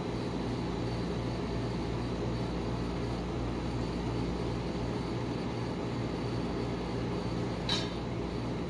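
Steady hum of the rolled-ice-cream cold plate's refrigeration unit running, with a brief click near the end.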